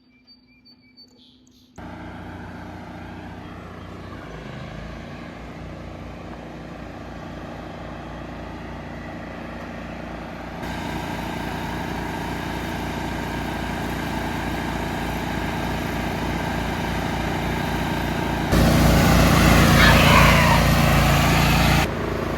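Small riding lawnmower engines running steadily, starting about two seconds in. The level jumps up twice, loudest near the end, then drops suddenly.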